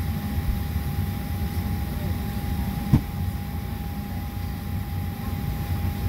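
Steady low rumble and hum inside the cabin of a parked Boeing 737-700, with a constant thin whine running through it from the aircraft's air systems. A single short knock about three seconds in.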